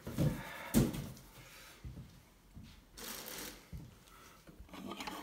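Packaging being handled on a table: a sharp knock a little under a second in, a few lighter knocks, and plastic wrap crinkling around three seconds in and again near the end.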